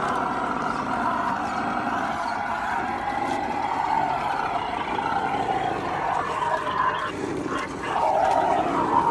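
Electric motor and gearbox whine of a radio-controlled scale crawler driving slowly over rough ground, getting louder about eight seconds in.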